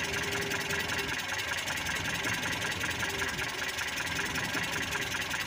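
Mitsubishi Colt T120's four-cylinder petrol engine idling steadily under the open hood. Its distributor is being turned by hand to set the ignition timing.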